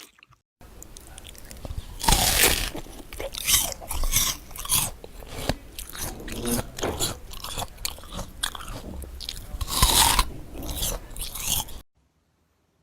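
Close-miked biting and chewing of crunchy food: loud crunches and snaps one after another, starting just under a second in and cutting off shortly before the end.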